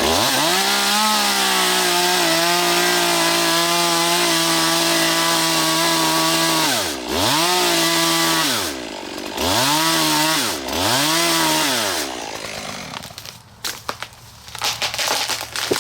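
Chainsaw revved up and held at full throttle while cutting into a tree, then revved three times in quick succession before dropping back. Near the end there are sharp cracks and snapping of wood as the hinge-cut tree goes over.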